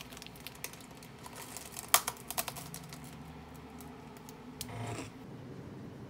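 Typing on a laptop keyboard: irregular sharp key clicks and taps, the loudest about two seconds in, then a brief soft rustle about five seconds in.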